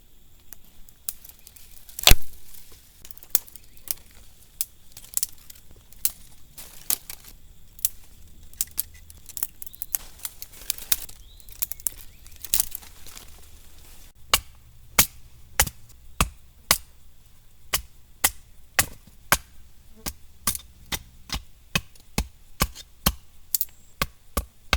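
Firewood being chopped with repeated sharp blows of a blade. The strikes come at uneven intervals at first, then turn into a steady run of about two a second from a little past halfway.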